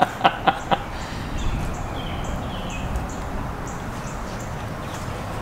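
A few sharp metallic clicks from a ratcheting torque wrench being worked on a bolt in the engine block, then steady background noise with faint small birds chirping.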